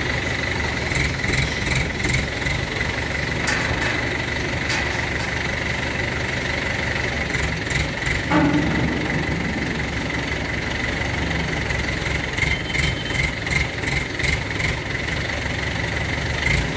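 Truck engine idling steadily with a knocking clatter, a thin steady high tone that pulses regularly over it, and one low thump about eight seconds in.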